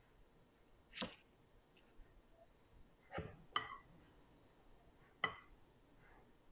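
Metal spoons clinking while coconut macaroon batter is scooped into paper cups in a muffin tin: four short, light clinks, one about a second in, two close together past three seconds, and one past five seconds.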